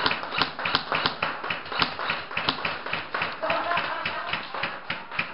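Quick footsteps on a concrete floor, about three a second, keeping an even pace.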